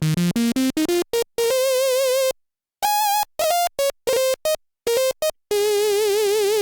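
Yamaha Montage M synthesizer playing a dry sawtooth lead (the DX100 sawtooth converted to FM-X) with no effects. It plays a quick run of single notes climbing in pitch, then held notes wobbling with a vibrato brought in by aftertouch, each note cutting off cleanly.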